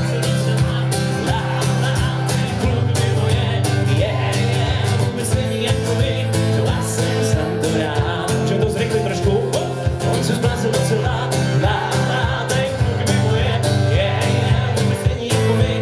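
Live acoustic guitar strummed steadily with singing, and an audience clapping along in time.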